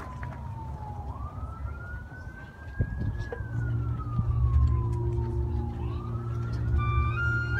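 A siren-like wailing tone, one clear pitch that slides slowly down, climbs, and falls again. It is most likely a synthesized siren effect played through the band's field speakers. A low held chord comes in about halfway, and a few rising flute notes begin just before the end.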